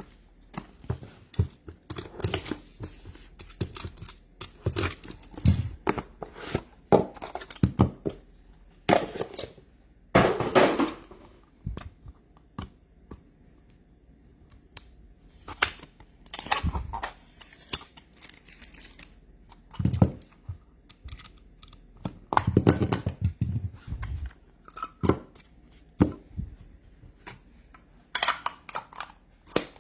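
A sealed box of trading cards being opened by hand: wrapping tearing and crinkling in irregular short bursts, with occasional knocks of cardboard.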